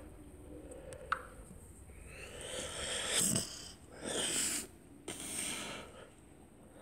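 A person breathing or sniffing close to the phone's microphone: three noisy breaths, after a single sharp tap about a second in.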